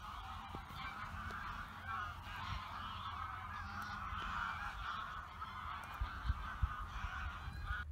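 A large flock of birds calling over one another without a break, the calls running together into a steady chatter. A few short low thumps come about six seconds in.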